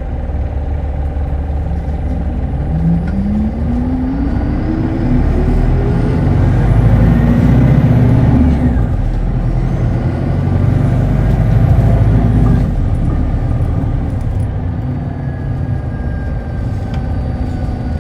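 Onboard running sound of a Hino 2SG-HL2ANBP city bus. The bus pulls away with a whine that climbs in pitch from about three seconds in, runs louder through the middle, then eases back to a steady rumble.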